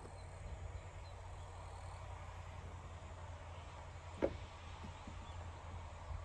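A single sharp knock about four seconds in, a goat's hoof striking the wooden plank ramp, over a low steady background rumble.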